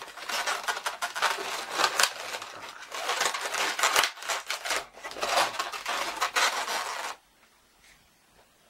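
Inflated latex twisting balloons rubbing against the fingers and each other as a balloon figure is squeezed and adjusted by hand, a busy scratchy rustle that stops suddenly about seven seconds in.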